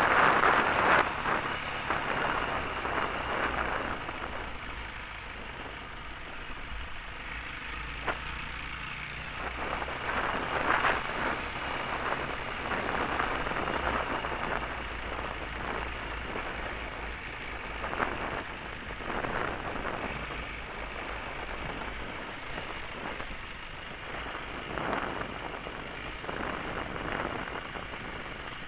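Wind buffeting a helmet-mounted camera's microphone in uneven gusts, over the low, steady running of a trail motorcycle's engine. The wind noise is loudest in the first few seconds, then settles.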